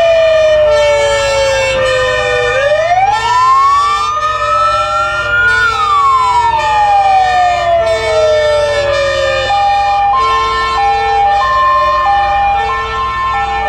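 Several emergency-vehicle sirens from passing fire engines sounding at once. One wail sweeps slowly down, up and down again, then stops about two-thirds of the way through. Under it, several two-tone sirens keep switching between a high and a low note, heard most clearly near the end, with vehicle engines running low beneath.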